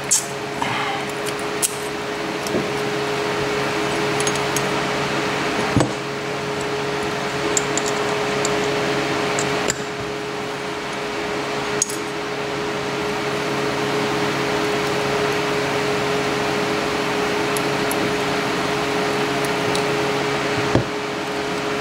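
A steady machine hum with a clear pitch, with a few light clicks and taps as the Chubb padlock's small metal parts are handled during disassembly.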